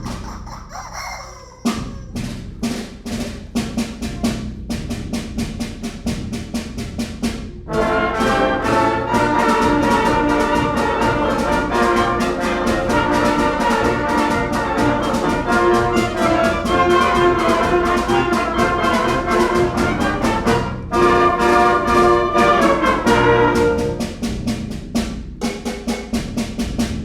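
Concert band playing a fast galop. A quick, steady percussion beat comes in about two seconds in, and the full band with trumpets and trombones enters loud at about eight seconds.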